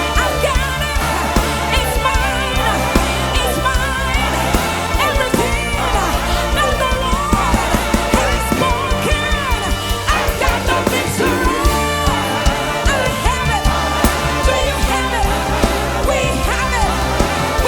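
Music with a steady beat and a singing voice, a bass line underneath.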